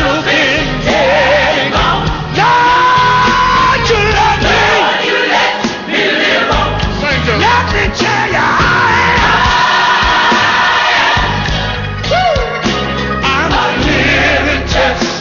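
Live gospel music: a lead singer holding long notes over a band, with backing voices.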